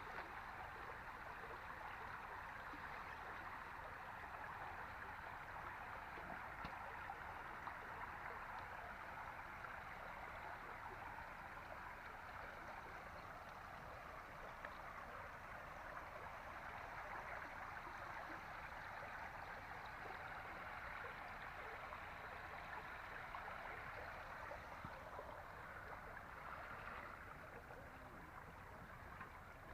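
Steady rush of flowing floodwater, an even watery noise that eases slightly near the end.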